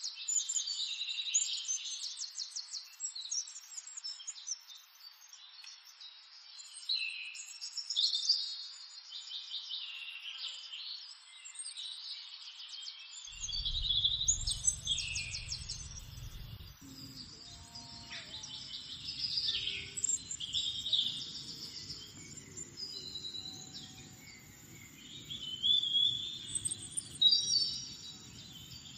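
Several birds singing and calling: overlapping chirps, whistles and quick trills, swelling and fading every few seconds. About halfway in, a low rumble joins, and a thin steady high tone runs on underneath the birdsong.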